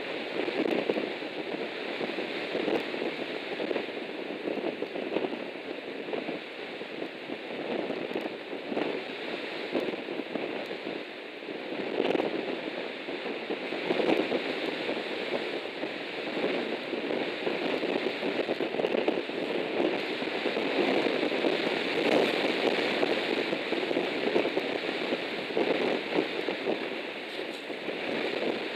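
Strong gusting wind buffeting the nest camera's microphone, a steady rushing crackle that swells and eases with the gusts.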